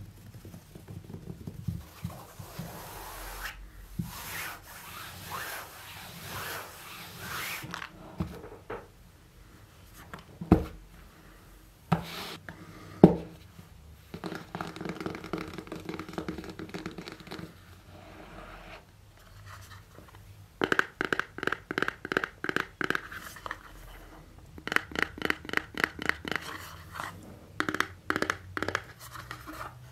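Close-miked hands scratching, rubbing and tearing at iPhone box packaging, with two sharp knocks near the middle. Runs of fast, even tapping, about eight a second, fill the last third.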